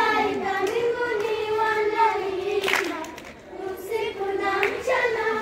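A group of children singing a song together in long, held phrases, with a short break in the middle and one sharp short sound about halfway through.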